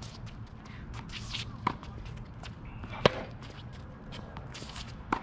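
Tennis rally on a hard court: a ball struck by rackets in sharp pops about a second and a half apart, the loudest about three seconds in, with footsteps and shoe scuffs on the court surface between the shots.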